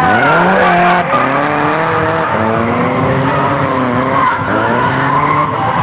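Drift car engine revving hard, its pitch dropping sharply at the start and then rising and falling repeatedly as the throttle is worked, over the hiss of tyres sliding sideways.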